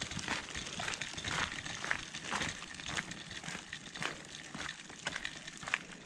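Footsteps crunching on a gravel path at a steady walking pace, about two steps a second.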